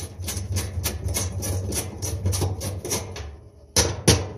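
Ratchet clicking rapidly and evenly, about five clicks a second, as a 5/16 bracket screw is backed out, followed by two sharp knocks near the end.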